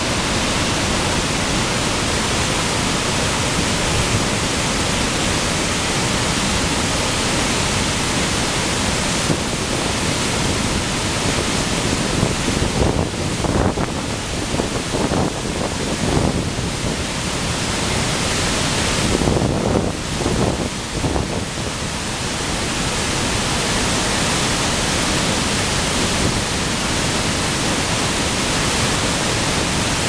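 Heavy flow of water pouring over a concrete erosion-control dam spillway and crashing into the plunge pool below: a loud, steady rush of white water. The rush wavers and turns uneven for several seconds in the middle.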